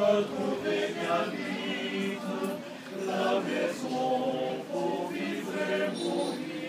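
Men's choir singing unaccompanied in several-part harmony, with long held notes and a short breath break about three seconds in.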